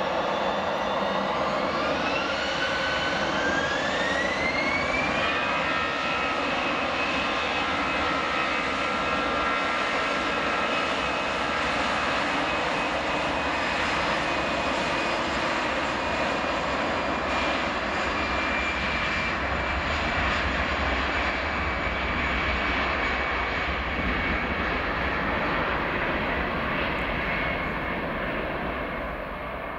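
Airbus A320's twin jet engines spooling up for takeoff: a whine rises in pitch over the first few seconds, then holds steady over a loud roar as the jet accelerates down the runway. Later the whine drops slightly in pitch and the sound eases off near the end.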